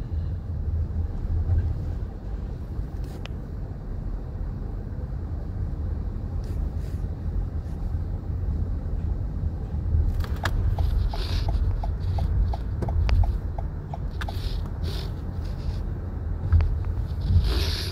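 Steady low rumble of road and engine noise inside a moving car's cabin. A little past halfway, a run of light, even ticks, about three a second, lasts a few seconds, with a few brief rustles around it.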